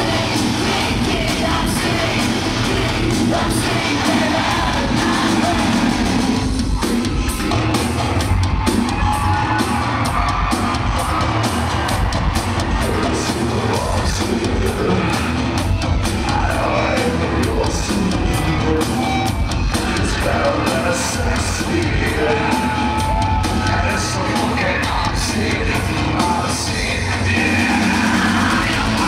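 Loud live rock music through a concert PA, heard from among the audience, with singing and crowd yelling over it; a steady drum beat runs through most of it.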